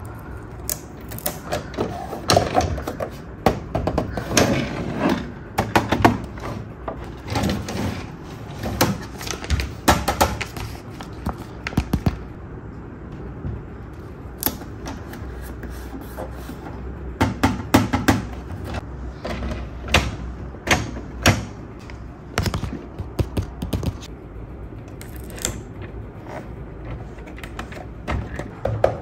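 Hands handling a hard plastic toy vehicle while applying stickers: irregular sharp clicks, taps and short rustles of plastic and sticker sheet.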